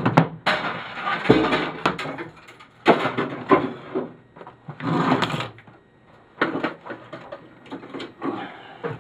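Printer parts being handled and moved: plastic and metal pieces clattering, scraping and knocking in irregular bursts.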